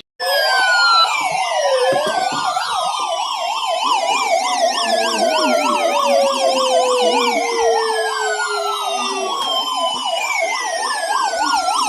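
Several sirens sounding at once: one yelps rapidly up and down, about four times a second, over wailing tones that slide slowly down in pitch. They cut in suddenly just after a moment's dropout.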